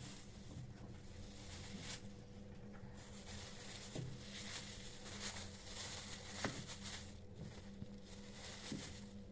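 Quiet kitchen handling sounds: soft rustling with a few light clicks, the sharpest about two thirds of the way in, over a faint steady hum.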